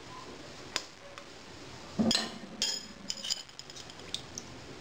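Metal spoons clinking and tapping against a ceramic plate and a metal cooking pot while spices are added. There are several light, ringing clinks, the loudest about two seconds in.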